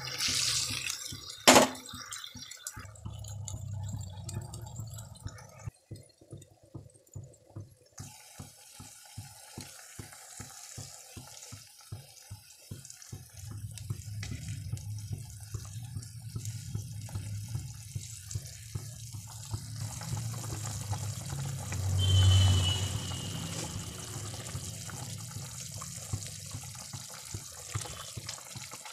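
Curry gravy bubbling and sizzling in a cooking pan, a watery simmer, with a run of quick pops in the middle. A sharp knock about a second and a half in, and a louder swell of sound near the end.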